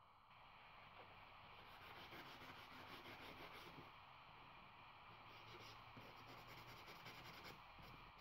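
Folded sandpaper rubbed by hand in quick back-and-forth strokes along a thin steel sword blade, a faint rapid scratching that starts a second or two in.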